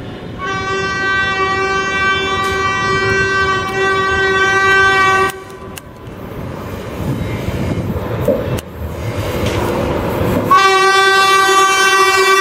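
WAP-7 electric locomotive sounding a long horn blast of about five seconds as it approaches at speed. The rumble of the train then builds, and a second long horn blast starts about two seconds before the end.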